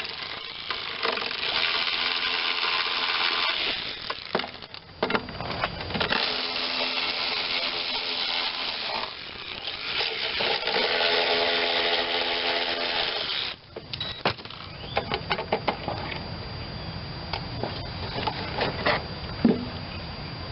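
A power driver running in three spells of a few seconds each, backing out the bolts that hold the mower's fuel tank. After that come light clinks and rattles of metal parts being handled.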